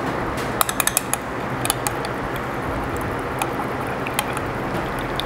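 A stirring rod clicking and scraping against the side of a glass measuring cup as hot liquid plastisol is stirred, a quick run of clicks about a second in and single clicks later, over a steady background rush of noise.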